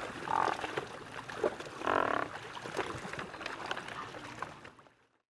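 Great white pelicans calling in a colony: two clear calls stand out, a short one about half a second in and a longer one about two seconds in, over a busy background of other calls and clicks. The sound fades out near the end.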